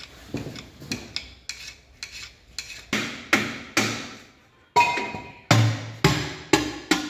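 A hammer striking metal parts on top of a tractor gearbox, about fifteen sharp blows at roughly two a second, each with a short metallic ring, heavier from about three seconds in.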